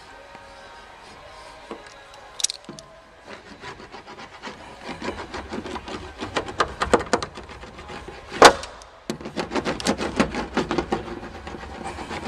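Sound-deadening sheet being rubbed and pressed onto a car door's metal panel: a run of quick, scratchy rubs and taps, with one sharp knock a little past the middle.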